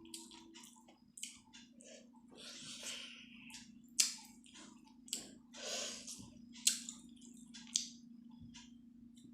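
Close-miked chewing and wet mouth sounds of someone eating chicken momos, with a few sharp smacking clicks, the loudest about four seconds in and again near seven seconds.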